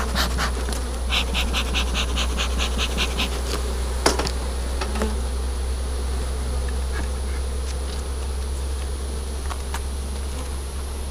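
Honeybees buzzing steadily around an open hive. About a second in comes a quick run of light ticks, roughly five a second, and a single sharp knock follows about four seconds in.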